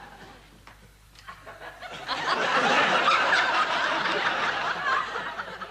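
Studio audience laughing, swelling up about two seconds in and dying down near the end.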